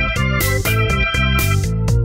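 Background music with a steady beat: pitched instrument notes over regular drum hits.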